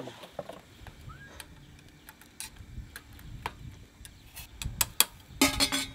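Chopsticks clicking and scraping against a stainless steel cooking pot while stirring noodles: scattered light clicks, then a louder clatter with a brief metallic ring near the end.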